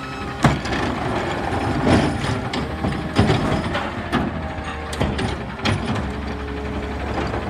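McNeilus automated side-loader garbage truck's hydraulic arm lifting a wheeled trash cart and tipping it over the hopper, over the steady hum of the running truck. Sharp metallic clanks and knocks come about once a second as the cart is raised and dumped, the loudest about half a second in, around two seconds in and around three seconds in.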